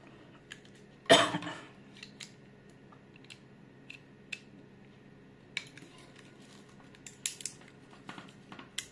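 Hand crimping tool clicking and clattering as an RJ45 connector on a Cat 6 cable is seated in its 8P slot and crimped, with one loud sharp snap about a second in and scattered small clicks after it.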